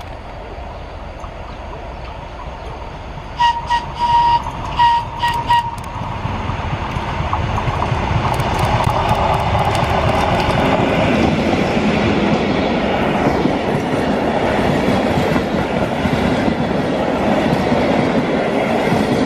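FS D445 diesel locomotive approaching and sounding its horn in about five short blasts a few seconds in, then passing close with its diesel engine running loud. Its train of old passenger coaches then rolls by.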